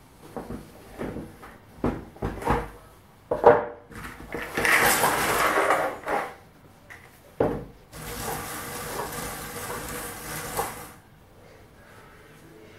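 A cardboard jigsaw puzzle box being handled on a wooden table: several knocks as the lid comes off, the sharpest about three and a half seconds in. Then the loose cardboard pieces pour and slide out of the box onto the table in two long spills, one about four seconds in and one about eight seconds in.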